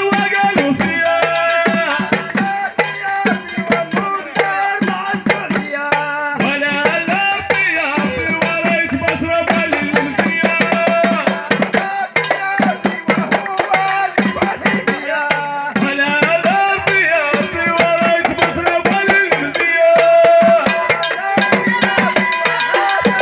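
Moroccan Houara folk music played live: a dense beat of hand-held frame drums and small clay goblet drums (taarija), with men singing over it.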